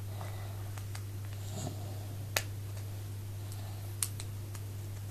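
Small toy pieces and tweezers handled by hand: a few scattered sharp clicks, the loudest about halfway through, over a steady low hum.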